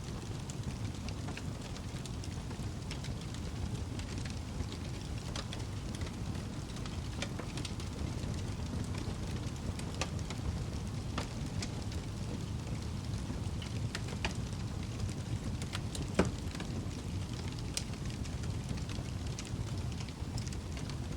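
Wood fire crackling in a fireplace: a steady low rumble of flames with scattered sharp pops and snaps, one louder pop about 16 seconds in.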